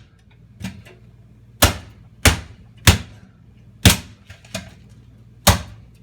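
Mallet blows on a manual Porta-Nailer flooring nailer, driving nails through hardwood floorboards into the subfloor: about six sharp strikes at uneven intervals, with a couple of lighter taps among them.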